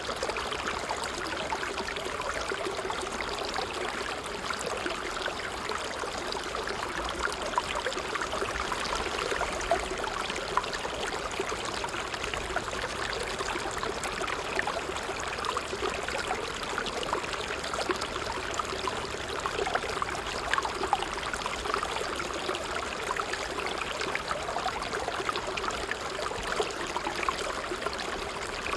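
Water trickling steadily, with small irregular splashes and gurgles over a continuous flow.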